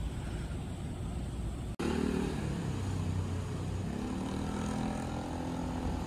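Road traffic with a motor vehicle's engine passing, its pitch dipping and then rising. The sound drops out for an instant about two seconds in.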